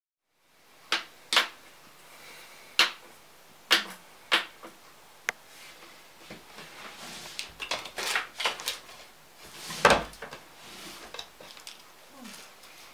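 Handling sounds at a desk: a few separate sharp taps and knocks, then a busier stretch of clatter and a wooden desk drawer pulled open with a knock about ten seconds in, and rummaging inside it.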